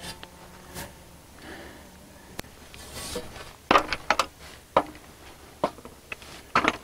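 A handful of short knocks as a long galvanized steel pipe is rested against an aluminium stepladder and the ladder is climbed. Most of the knocks fall in the second half.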